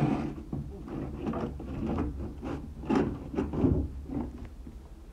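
A series of irregular knocks and clatters, as of objects being handled and set down, over a low steady hum.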